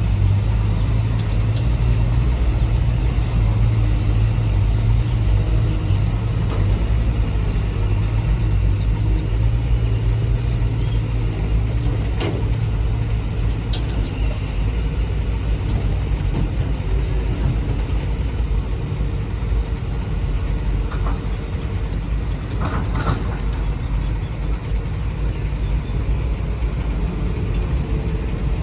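Homemade radio-controlled hydraulic construction machines running: a steady low motor-and-pump drone that eases off about ten seconds in, with a few sharp clicks and knocks.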